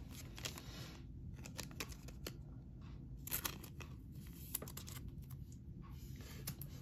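Faint scattered clicks and rustles of basketball trading cards being handled and shuffled in the hands, over a low steady hum.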